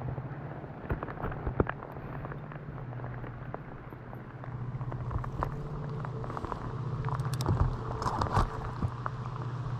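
Raindrops tapping and crackling irregularly close to the microphone, busier in the second half, over a steady low rumble.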